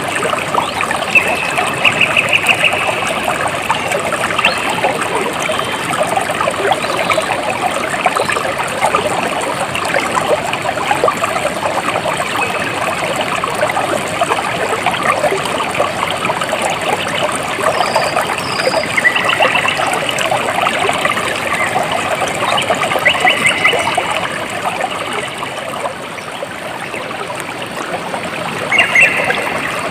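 A stream of water trickling and splashing over rocks, steady and continuous. A few short, rapid high trills come through now and then, about four times.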